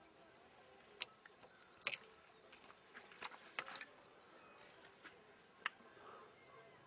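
Faint, scattered metallic clicks and taps as hands fit parts onto a sewing machine's spoked handwheel, with a small cluster of clicks a little past the middle.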